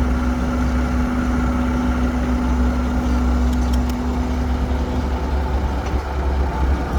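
Heavy vehicle's engine running steadily with a deep rumble; a faint steady hum above it fades out about five seconds in.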